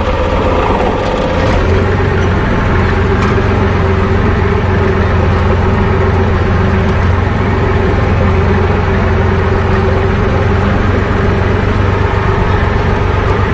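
IMT tractor's diesel engine running at a steady speed as the tractor is driven along a rough track, heard from inside the cab.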